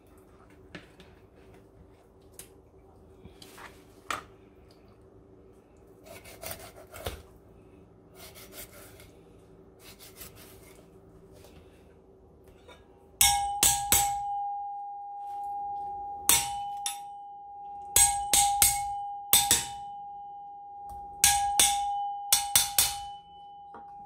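A homemade steel fish scaler used as a hammer on the spine of a kitchen knife set in a parrotfish: about a dozen sharp metal-on-metal blows in the second half, each leaving the steel ringing at one steady pitch. Before that, only faint scraping of the knife on the fish.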